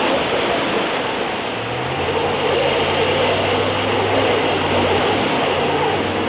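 Jeep Grand Cherokee engine held under throttle as the SUV, stuck in wet sand at the water's edge, spins its rear wheel in place. The engine note steps up about a second and a half in and holds, over a steady hiss of surf and churned water and sand.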